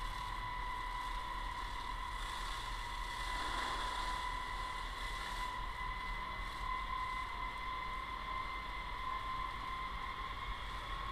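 A fire hose spraying a steady jet of water, heard as a steady hiss with a steady high-pitched whine over it.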